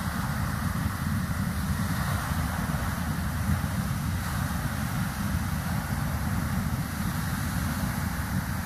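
Soda Springs Geyser erupting: a steady rush of the water jet and its falling spray, with a deep rumble underneath.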